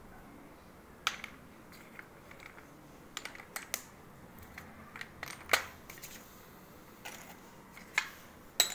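Scattered light clicks and clinks of hard baked-clay pieces knocking against one another and the steel plate as hands sift through them, the sharpest a little past halfway.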